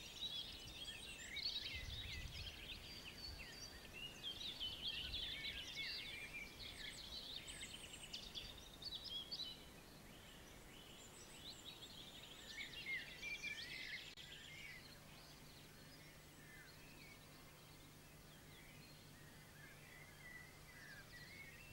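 Several songbirds singing and chirping together, densest in the first half, then thinning out and fainter toward the end. A faint steady low hum comes in about two-thirds of the way through.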